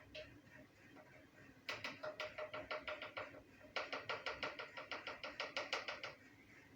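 A spoon tapping quickly and repeatedly against a pot, about five taps a second in two runs, knocking paprika off over cut potatoes.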